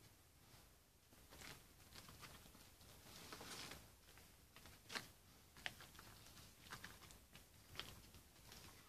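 Faint handling noise: soft rustling broken by scattered sharp clicks, the loudest about five seconds in and again a little later.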